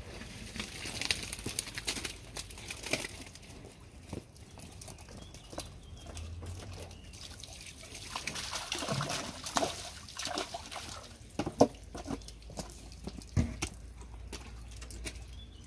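Water splashing and dripping as a landing net of live trout is emptied into a floating net pen, the fish thrashing at the surface. The splashes and knocks come in a burst through the second half, with one sharp loud splash near the end.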